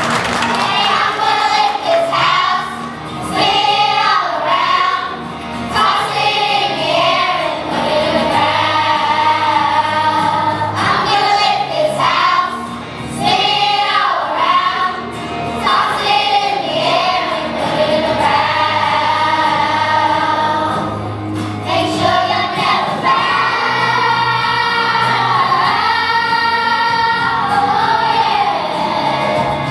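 Children's choir singing over instrumental accompaniment, with sung melody lines over held low bass notes.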